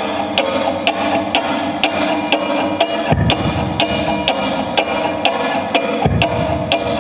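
Nylon-string classical guitar played in a steady rhythm, with a sharp woody click marking the beat about twice a second. Deeper low notes come in about three seconds in and again near the end.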